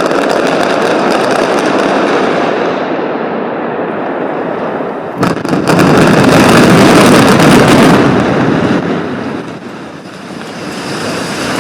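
Demolition of a structure: a loud, rumbling roar of collapse and falling debris with crackling, a second, louder surge about five seconds in, then dying down.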